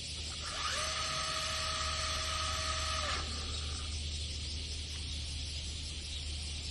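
Electric motor of a radio-controlled buggy whining at a steady pitch for about three seconds, rising briefly as it gets up to speed and cutting off suddenly, then about a second of fainter rolling noise as the buggy coasts on its one-way bearing.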